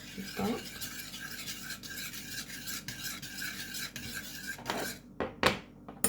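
Hot milk with egg yolk being stirred quickly in a saucepan, the utensil scraping steadily around the pan for about five seconds, so the yolk mixes in without curdling into shreds. Near the end come a few sharp knocks, the loudest about five and a half seconds in.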